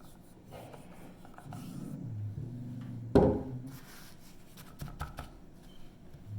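Handling noises at a whetstone being set up for sharpening: light rubbing and small taps, with one sharp knock about three seconds in.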